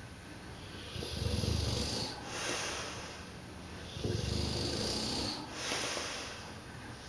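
Dogue de Bordeaux snoring in its sleep: two long, low snores about three seconds apart, each followed by a breathy exhale.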